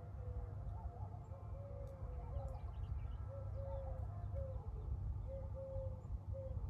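A bird calling in a string of short, low notes, over a steady low rumble.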